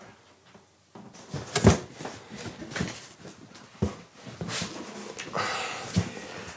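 A large cardboard box being handled and moved about: a series of knocks and thumps with rustling and scraping in between, starting about a second in, the loudest knock about a second and a half in.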